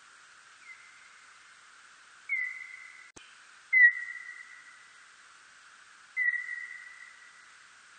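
Serotine bat calls brought down into the audible range: four whistle-like chirps, each a quick downward sweep settling into a steady high tone that trails off over about a second, over a steady hiss. A single sharp click comes about three seconds in.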